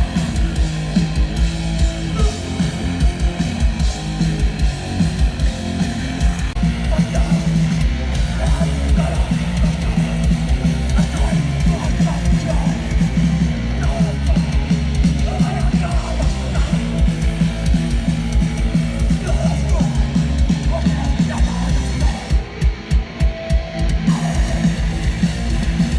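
Live hardcore punk band playing loud, with distorted electric guitars, bass and fast pounding drums; about three-quarters of the way through the band breaks into stop-start stabs with short gaps between them.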